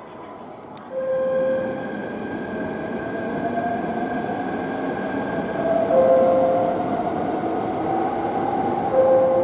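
Joetsu Shinkansen train approaching the platform, its running noise steady with a slowly rising whine. A short steady tone sounds three times over it: about a second in, about six seconds in and near the end.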